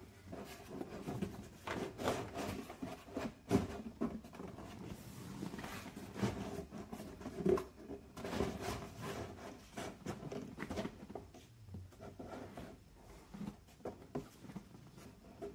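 Glove box liner being worked and pushed into a tight opening under a car's dashboard: irregular rubbing, scraping and light knocks, the sharpest about three and a half and seven and a half seconds in.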